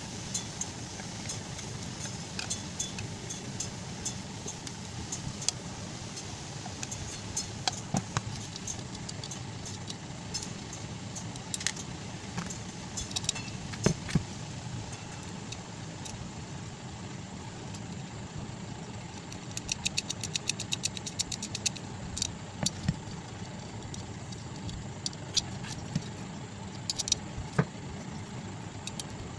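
Screwdriver and metal parts clicking and tapping as a stand fan motor's end cover is unscrewed and handled, with two bursts of rapid fine ticking, about twenty seconds in and near the end, over a steady low background hum.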